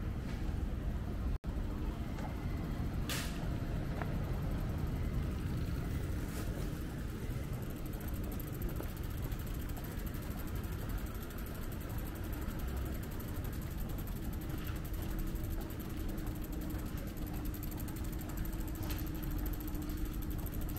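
Street traffic: vehicle engines running with a steady low rumble and a faint steady hum under it, a few light clicks on top. The sound drops out for an instant about a second in.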